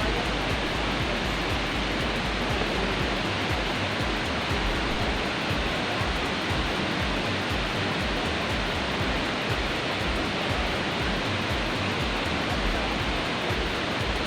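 Waterfall: water pouring and splashing into a pool, a steady, unbroken rushing noise.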